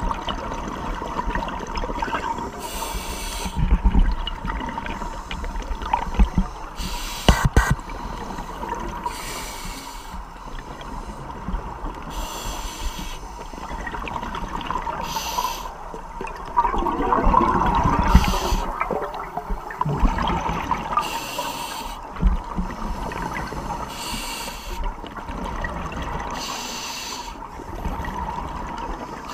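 Scuba regulator breathing underwater: a short hiss of inhalation about every three seconds, with bubbling exhalations in between. A faint steady tone runs underneath.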